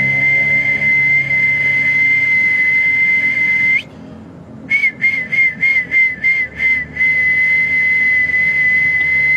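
A high whistled note held very steady for nearly four seconds and broken off with a slight upward flick. After a short gap come about seven quick short whistle blips, around three a second, and then the long steady note again.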